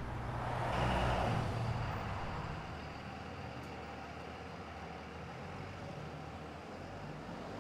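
Street traffic: a vehicle passes with a swell of noise about a second in, then steady road noise.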